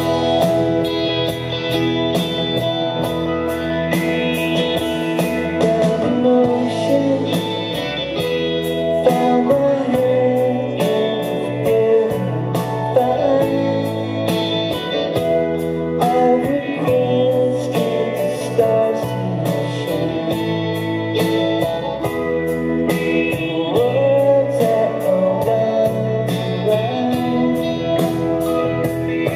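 Rock band playing live: electric guitars, bass guitar and a drum kit keeping a steady beat, with singing.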